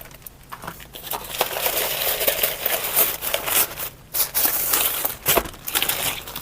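Packaging crinkling and rustling as a parcel is opened and handled by hand, with a short pause about four seconds in.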